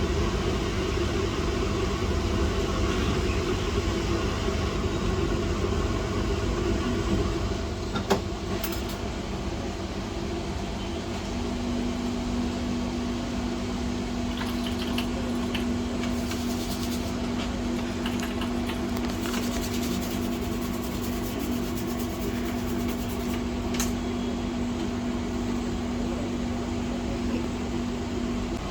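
Steady whir of an electric fan or blower on the repair bench. There is a single click about 8 seconds in, and a steady low hum tone joins about 11 seconds in.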